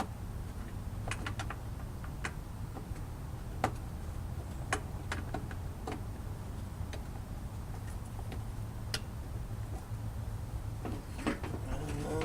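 Scattered sharp clicks and light knocks of hand tools and plastic car light and trim parts being handled and fitted, a few seconds apart, over a steady low hum.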